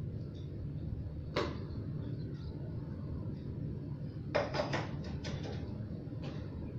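Bicycle seatpost with saddle being worked down into a mountain bike's seat tube: a single click about a second in, then a quick cluster of knocks and clunks a little past the middle and a few lighter ones after, over a steady low background hum.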